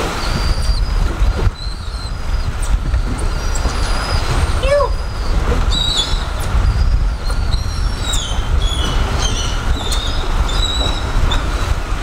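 Steady low rumble of wind on the microphone, with many short, high chirping bird calls scattered over it throughout.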